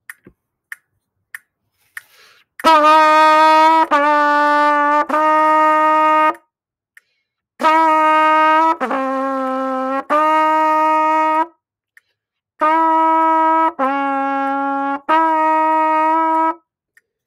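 Trumpet playing a long-tone warm-up: three phrases of three sustained notes each, about a second long apiece, with short rests between the phrases. Four soft, evenly spaced clicks come before the first note.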